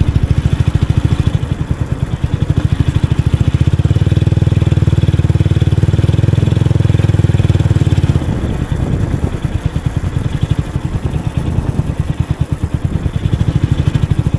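A motorcycle being ridden: its engine runs with a rapid low pulsing rumble that grows stronger in the middle and eases off about eight seconds in.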